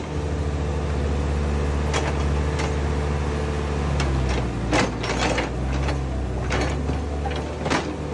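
Case 851EX backhoe loader's diesel engine running steadily while the backhoe digs. Sharp metallic knocks and scrapes come from the bucket and arm working through mud and stones, several in the second half, the loudest just before five seconds in.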